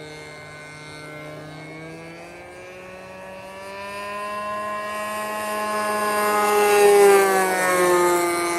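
Radio-controlled Ultimate aerobatic biplane flying by, its motor and propeller making a steady pitched drone. The drone climbs slowly in pitch and grows louder, is loudest about seven seconds in, then drops in pitch as the plane passes.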